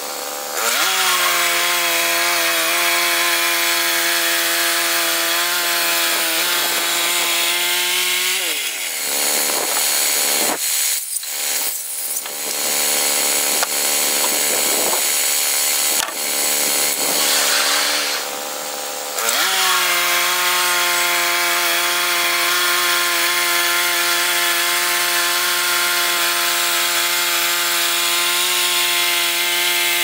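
Woodland Mills HM122 band sawmill's gas engine running steadily at high speed; about eight seconds in its pitch drops and the sound turns rough and uneven for about ten seconds, then the engine speeds back up to a steady run.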